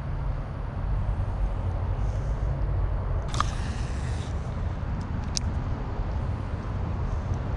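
A baitcasting reel casting: its spool spins out with a brief whirring hiss for about a second near the middle, and a sharp click follows a second later as the reel is re-engaged, over a steady low background rumble.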